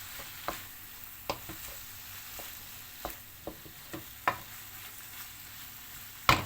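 Chicken pieces sizzling in a frying pan as they are stirred and turned with a utensil, which clicks and scrapes against the pan now and then. Near the end comes a quick clatter of several louder knocks.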